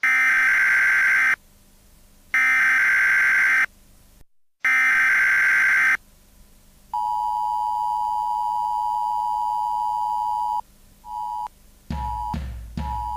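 Opening of a homemade electronic song. Three harsh buzzer blasts, each a little over a second long with short gaps between, then a long steady beep and one short beep. Near the end a drum beat comes in with bass, with a short beep on each beat.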